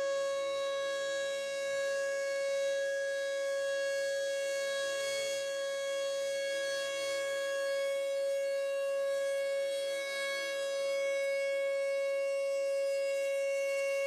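Federal Signal Thunderbolt 1000 rotating outdoor warning siren sounding its steady alert tone. It holds one high, constant pitch and swells and fades gently as the horn turns.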